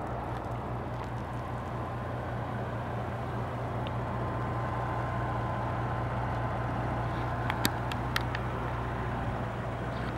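A vehicle engine idling with a steady low hum. A few sharp clicks come about seven and a half to eight seconds in.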